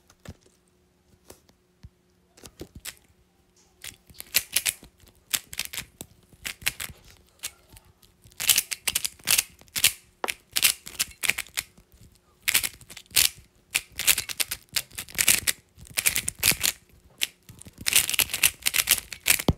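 Rapid plastic clicking and clacking of a MoYu GTS3 M 3x3 speedcube being turned fast during a timed solve: a few scattered clicks at first, then dense runs of turns broken by short pauses.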